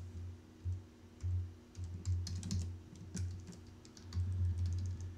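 Computer keyboard keys tapped irregularly: scattered sharp clicks with dull low thuds between them.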